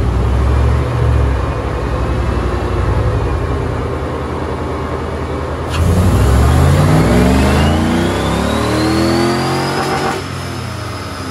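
5.3-liter LS V8 in a Nissan S13 240SX running on a chassis dyno: it holds a steady speed, then about six seconds in the throttle opens and the revs climb steadily under load for about four seconds, with a whine rising alongside. Near the end the throttle closes and the revs fall back.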